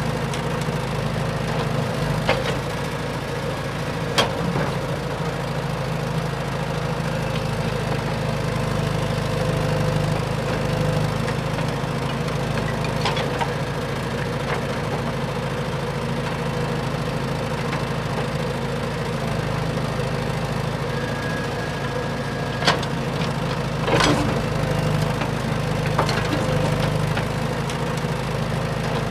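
Large excavator running with a steady low hum, with a few sharp knocks, one about four seconds in and a couple near the end.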